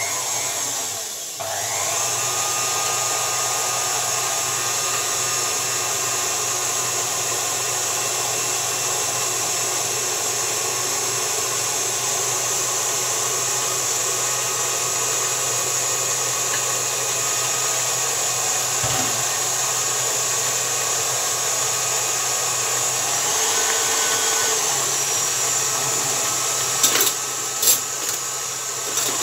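KitchenAid stand mixer motor running steadily as it beats cake batter, settling in over the first couple of seconds. Its sound dips briefly a few seconds before the end, and a couple of sharp knocks follow near the end.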